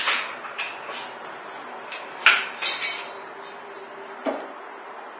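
A few light knocks and clinks of measuring tools, a metal square and a rule, being handled and set down on a parquet floor. The sharpest knock comes a little over two seconds in.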